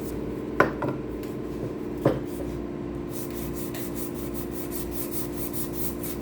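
Sandpaper on a hand sanding block scrubbing cured epoxy pour fill on a guitar body's edge in quick back-and-forth strokes, over a steady machine hum, with two sharp knocks about half a second and two seconds in.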